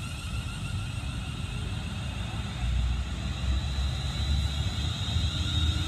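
London Northwestern Railway electric multiple unit moving off past the platform, its traction motors giving several whines that climb steadily in pitch as it gathers speed. Under them a low rumble of wheels on the track grows louder.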